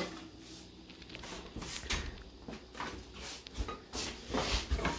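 Oven door and metal baking tray being handled: a knock, then scattered clicks and clatter that grow busier toward the end as the tray is pulled out of the oven.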